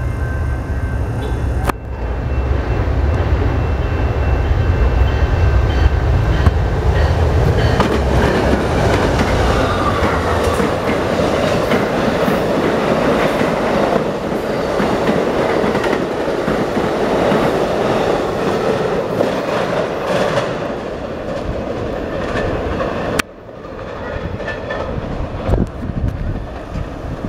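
Amtrak passenger train passing at speed. The two GE P42DC diesel locomotives' engines make a strong low hum as they go by, then the bi-level Superliner cars roll past with rhythmic clickety-clack from the wheels over the rail joints. The sound drops off abruptly near the end as the train recedes.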